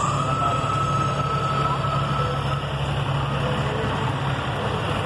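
Tractor engines running steadily in a rally, a continuous low hum. A high held note rises in at the start and holds for about two and a half seconds before fading.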